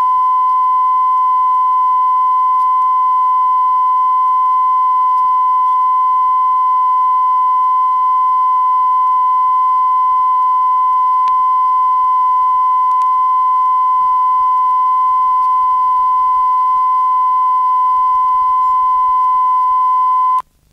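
Steady 1,000 Hz test tone played back from a 50-year-old stereo calibration tape on a Sony TC-350 reel-to-reel deck. The tone is recorded at 100% level, equal in both channels, for setting stereo balance. It holds one unchanging pitch and cuts off abruptly shortly before the end.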